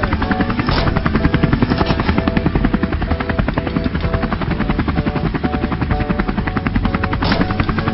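A cartoon vehicle sound effect: a steady, fast chopping drone much like a helicopter's rotor, with faint musical tones beneath it.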